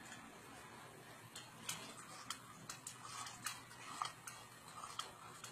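Chopsticks clicking and scraping against a stainless steel bowl as food is shovelled in: faint, irregular sharp clicks, a few close together.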